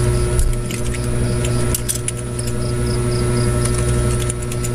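Steady electrical hum and hiss from the recording setup, with a few faint clicks scattered through it.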